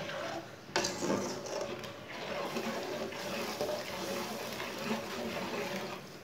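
Slotted metal spoon stirring thin, watery lentil and spinach curry in an aluminium karahi: the liquid sloshes and swirls steadily.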